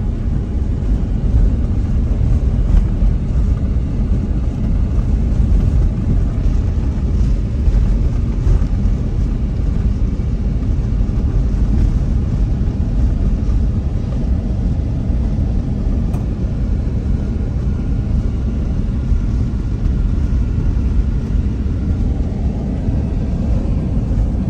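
Steady low rumble of a car driving, tyre and engine noise heard from inside the moving car.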